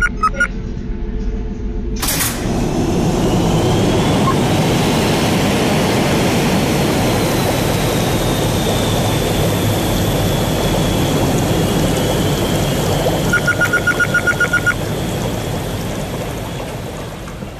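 Sound effect of water rushing and churning through a treatment plant's tank and pipes: a loud, steady rushing noise that starts about two seconds in, after a low hum, and fades near the end. A quick run of about ten short high electronic beeps sounds about three-quarters of the way through.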